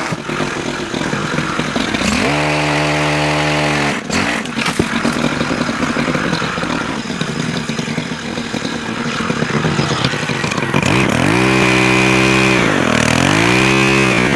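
Stihl HT103 pole saw's small 4-MIX engine idling roughly and revved up twice: a rising whine held steady for about two seconds, then back to idle, and again near the end with a brief dip in pitch between two high runs.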